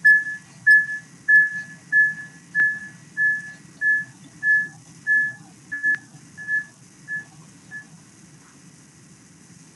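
A run of about thirteen short, high tones of the same pitch, roughly one and a half a second, that grow fainter and stop about eight seconds in.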